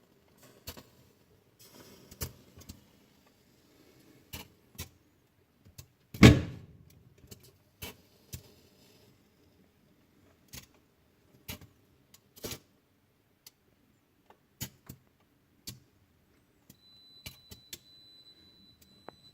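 Irregular sharp clicks and knocks, a louder crack about six seconds in, and a faint steady high tone near the end.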